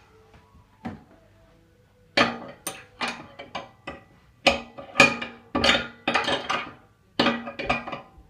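Steel spanner clinking and knocking against the stub axle's top nut and fittings as the nut is undone. A run of sharp, irregular metallic clinks, some ringing briefly, starts about two seconds in.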